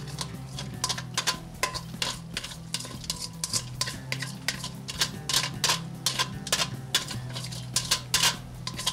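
A perforated metal strainer of boiled rice knocking and scraping against the rim of a non-stick pot as the rice is shaken out. The clicks and knocks are irregular and come thicker and louder in the second half.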